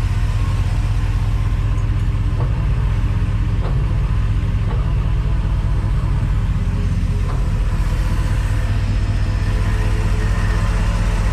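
Crusader fuel-injected marine V8 engine idling steadily and running smoothly on freshly rebuilt and tested injectors. A few faint clicks are heard over it.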